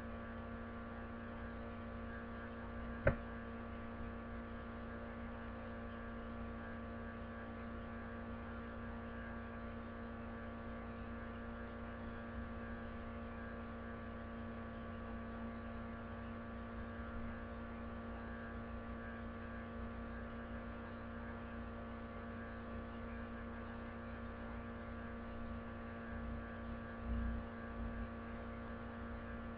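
Steady electrical mains hum, a buzzy drone of many even tones. A single sharp click comes about three seconds in, and a few soft low bumps come near the end.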